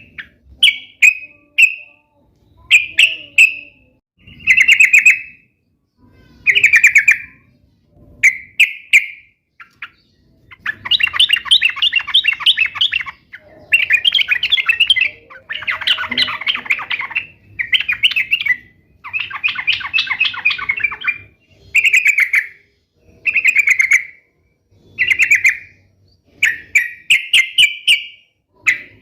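Yellow-vented bulbul (trucukan) singing loudly in short, bubbly chattering phrases, each under a second and repeated every second or two. A few longer phrases come in the middle.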